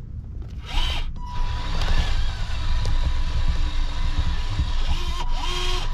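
Scale RC construction machine running: a low engine-like rumble with a steady high electric whine that sets in about a second in. Short rising and falling motor whines come about a second in and again near the end.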